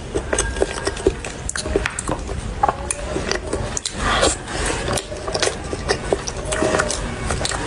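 Close-up eating sounds: wet chewing and lip smacks on soft cream cake. A plastic fork cuts into the cake and scrapes against its paper box, with a longer scraping rustle about four seconds in.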